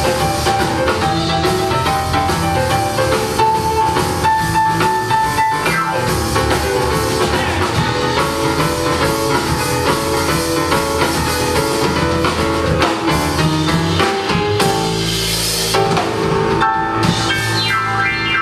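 Live boogie-woogie piano trio playing an instrumental passage: piano, upright bass and drum kit.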